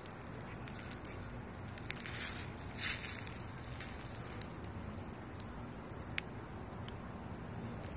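Footsteps crunching through dry leaf litter and mulch, with brief rustles about two and three seconds in and a few sharp clicks.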